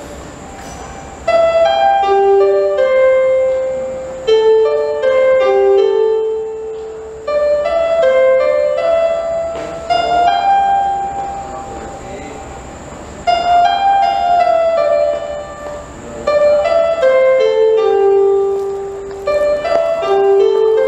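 Piano melody played in repeated phrases of falling notes, a new phrase starting loudly about every three seconds.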